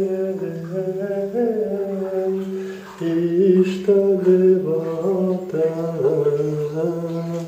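A man's voice chanting a mantra in long, held tones, breaking off briefly for a breath about three seconds in.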